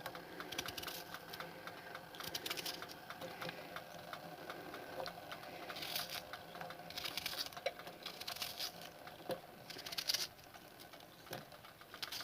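Knife cutting an onion: a quick, even run of light taps of the blade, with a few rougher cuts.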